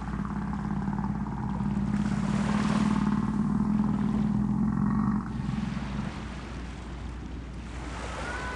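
A low, steady rumbling hum over a rushing hiss. It swells over the first few seconds, then drops off suddenly about five seconds in.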